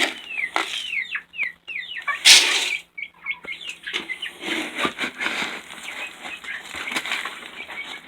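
Chickens calling with a run of short, falling chirps, then a brief, loud flurry of wing flapping a little over two seconds in, followed by scattered rustling and clicks.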